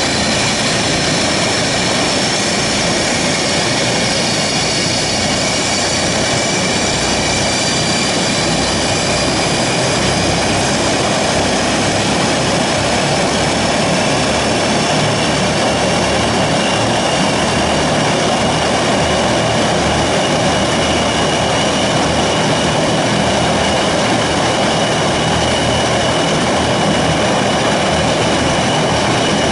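Antonov An-22 Antei's four Kuznetsov NK-12 turboprops, driving contra-rotating propellers, running on the ground after start-up: a loud, steady drone with high whining tones over it.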